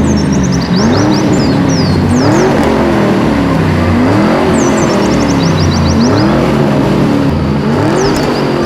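Car engine revving up and falling back over and over, about once every second and a half, with clusters of short high squeals.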